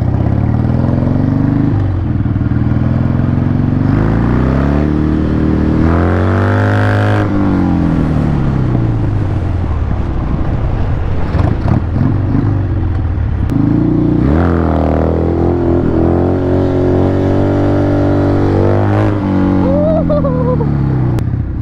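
Harley-Davidson V-twin motorcycle engine pulling hard in second gear, its revs climbing and falling several times as the rider opens the throttle and rolls off, heard from the rider's seat.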